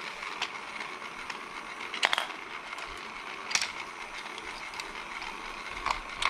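Plastic toy logs clicking and clattering as they are lifted by hand off a toy train's log wagon: a few sharp clicks, the loudest about two seconds in, over a faint steady hiss.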